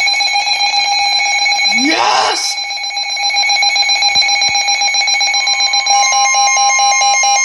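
Weather alert radios sounding their electronic tornado-warning alarm: a steady high alarm tone, joined about six seconds in by a second, pulsing beep.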